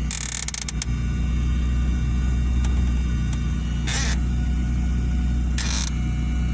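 Car engine idling with a steady low hum, interrupted by a few short bursts of handling noise near the start, about four seconds in, and again a second and a half later.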